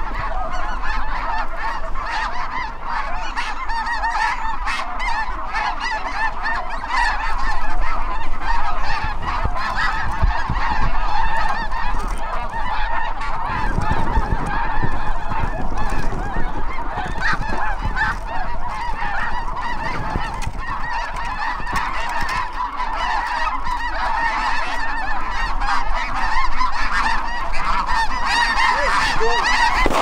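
A large flock of snow geese calling overhead: a dense, continuous chorus of honking from hundreds of birds.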